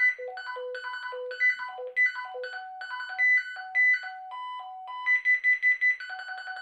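Binatone Terrain 750 walkie-talkie playing its call ringtones through its small speaker: quick electronic beeping tunes that hop between a handful of fixed pitches. About five seconds in the tune changes to a faster run of repeated high beeps.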